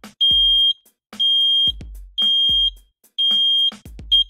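Smartwares RM337 combined carbon monoxide and gas detector sounding its alarm in self-test after its test button is pressed: a high-pitched beep about half a second long, repeating about once a second four times, then a quicker run of short beeps near the end.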